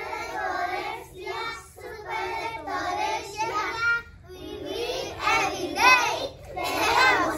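A group of young children singing together in unison, their voices getting louder in the second half.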